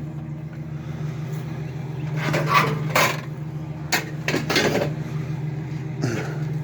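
Scrap metal clanking and knocking several times as pieces of a broken-down microwave shell are handled, over a vehicle engine idling steadily.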